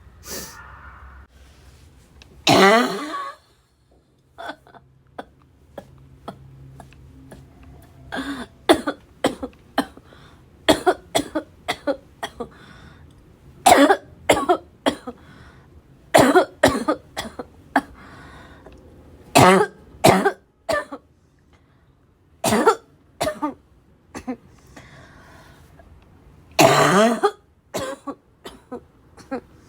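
A person's barking cough coming in fits: one long harsh cough about three seconds in, then clusters of short coughs every few seconds, with quieter throat-clearing sounds between.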